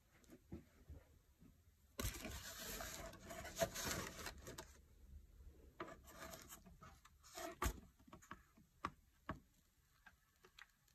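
Faint scraping and rubbing on a 3D-printed PLA helmet as its seam is worked over. It is loudest for a couple of seconds starting about two seconds in, then gives way to a few small knocks and clicks.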